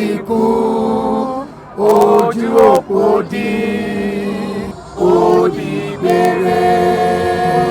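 Church choir singing in phrases of long held notes, each breaking off briefly before the next, with a longer sustained passage near the end.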